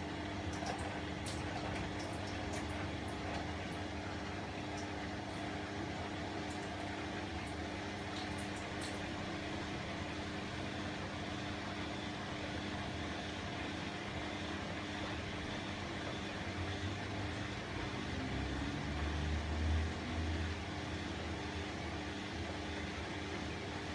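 Bosch WAE24162 washing machine running in its rinse cycle: a steady mechanical hum with a few faint clicks in the first nine seconds. A low rumble swells briefly between about 17 and 20 seconds in.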